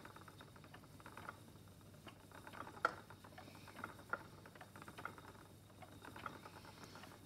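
Faint irregular clicks and light ticking from a wooden spinning wheel turning as fibre is spun, with one sharper click about three seconds in.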